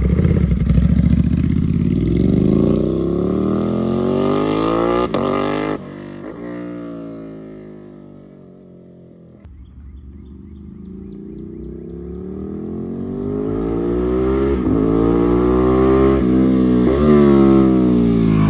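Ducati Panigale V2's twin-cylinder engine through a full titanium Vandemon exhaust, loud and climbing in pitch under throttle, then dropping in pitch and fading away to a low level. It then grows steadily louder and higher again, loud once more near the end.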